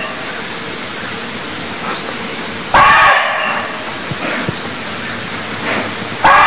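Muntjac (barking deer) giving short, loud single barks, one about three seconds in and another near the end, over a steady background hiss with faint high rising chirps.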